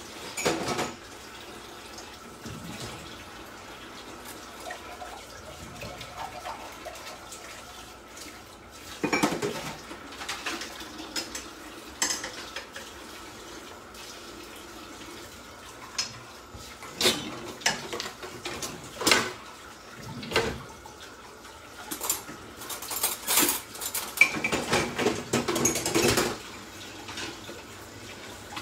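Kitchen clatter: pots, dishes and cutlery knocked and clinked in scattered bursts, busiest near the end, over a faint steady high hum.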